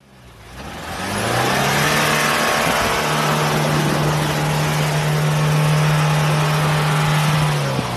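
Mahindra Thar engine revving hard as the jeep drives through a muddy pond, with water splashing and spraying around the wheels. The engine note climbs over the first few seconds, then holds at a steady high pitch until it drops away near the end.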